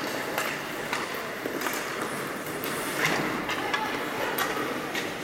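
Ice hockey play on an indoor rink: skate blades scraping the ice and scattered sharp clacks of sticks on the puck and ice, with voices echoing in the arena.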